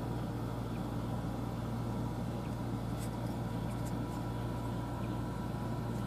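Steady low mechanical hum with a few faint clicks about halfway through.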